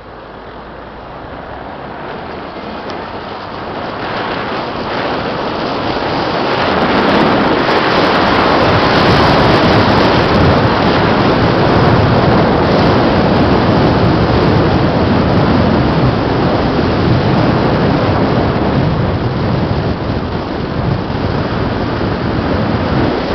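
Loud wind noise on the microphone of a moving Renault 19 convertible, building steadily over the first eight seconds as the car gathers speed, then staying loud.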